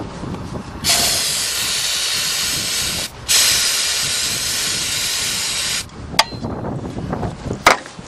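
Aerosol can of starting fluid hissing as it is sprayed into the throttle body of a Buick Regal's 3.8 V6 that won't start: two sprays of about two seconds each, with a short break between them. Two sharp clicks follow near the end.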